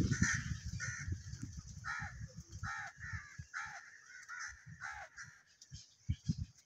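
Crows cawing: a run of about a dozen harsh caws, roughly two a second. A low rumble on the microphone runs underneath, strongest at the start.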